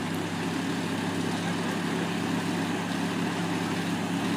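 Pickup truck engine running steadily at one constant speed, a low, even drone without revving.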